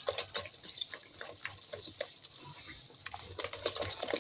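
A bare hand squelching through thick cake batter in a stainless steel bowl, making a stream of irregular wet squishes and clicks.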